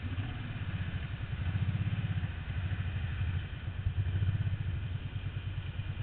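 ATV engine running at low speed while pulling through a shallow, rocky creek. The throttle picks up a little about one and a half seconds in and again near four seconds, then eases.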